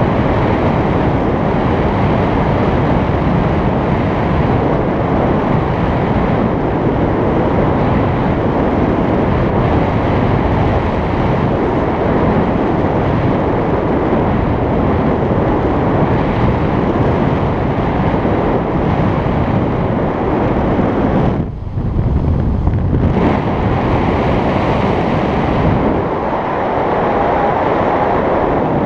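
Airflow in flight rushing over a pole-mounted GoPro's microphone: a loud, steady wind noise, with a brief lull about three-quarters of the way through.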